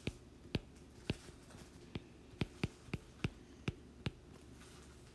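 Stylus tip tapping and clicking on a tablet's glass screen during handwriting: about ten short sharp clicks at irregular intervals, stopping about four seconds in.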